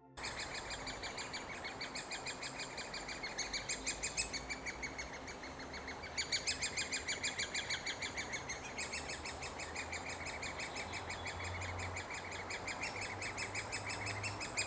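Great spotted woodpecker chicks calling from the nest: a loud, continuous run of rapid, high-pitched repeated begging calls, several a second.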